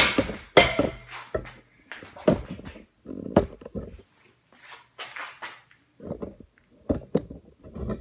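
Handling noise: fabric of a fleece jacket rubbing against the recording phone, with irregular knocks and thumps as it is moved about. The loudest knocks and rustles come in the first second.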